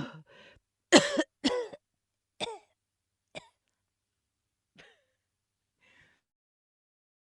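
A person retching: a string of short, throaty gagging heaves, two strong ones about a second in, then weaker ones that grow fainter and further apart and die away.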